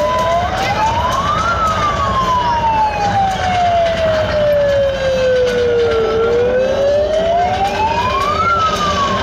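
A siren wailing, its pitch rising over two or three seconds and falling more slowly over about four, peaking twice.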